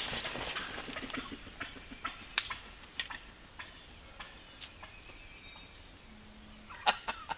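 Scattered short, sharp bird chirps, some dropping quickly in pitch, with a louder cluster near the end.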